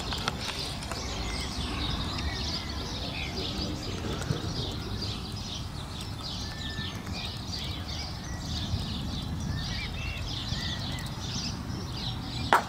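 Birds chirping over a steady low rumble of open-air background, then, near the end, a single sharp knock of a croquet mallet striking a ball.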